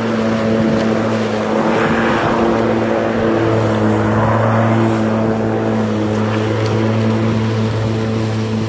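Mountfield MC380 Li cordless battery lawnmower cutting grass, its electric motor and blade running with a steady hum that holds its pitch under load.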